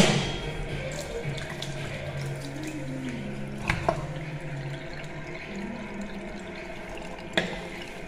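A push-button self-closing washroom tap pressed with a sharp click, then water running into the basin. A pair of clicks about halfway through from a wall soap dispenser being pushed, and another click near the end.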